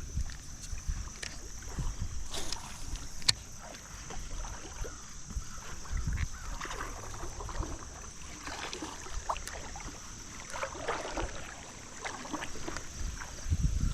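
Water sloshing and splashing around someone wading a creek, with scattered small clicks, over wind rumbling on the microphone. A steady high-pitched drone runs underneath.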